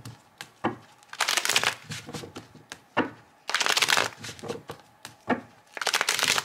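A deck of tarot cards being shuffled by hand: three short bursts of rustling cards with a few sharp snaps of the cards in between.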